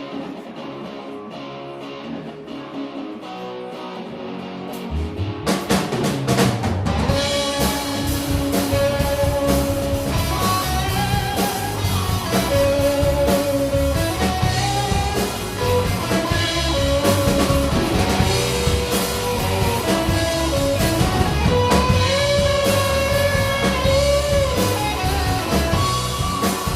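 Live rock band playing an instrumental intro: guitar alone at first, then drums and bass kick in about five seconds in, with a lead melody line over them.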